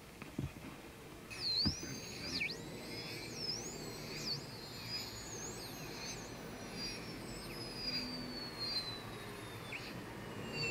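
High-pitched chirps and swooping whistles, starting about a second in, with one long tone sliding slowly downward beneath them. A few soft clicks come near the start.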